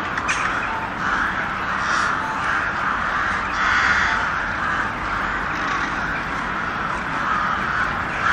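Many crows cawing at once, their calls overlapping into a steady chorus.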